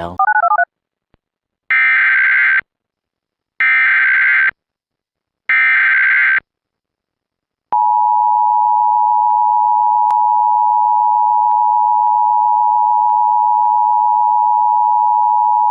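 Emergency Alert System tones: three one-second bursts of SAME header data, followed by the steady two-tone EAS attention signal, held for about eight seconds. A brief warbly sound comes at the very start.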